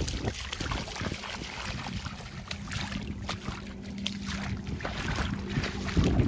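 Steps splashing through shallow, ankle-deep water, a quick run of small crisp splashes as the dog wades. Wind buffets the microphone, hardest near the end.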